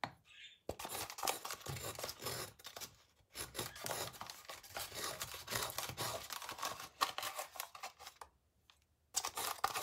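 A bag of powdered sugar rustling and crinkling while a spoon digs and scrapes at the sugar, which has gone hard. The sounds come in irregular stretches, with a short pause near the end.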